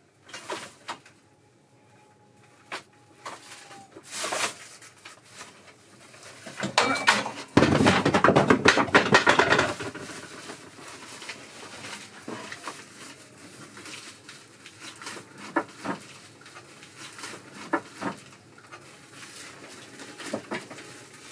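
Scattered knocks and clicks of hard objects being handled, with a dense, louder run of rapid clattering from about seven and a half seconds to ten seconds in.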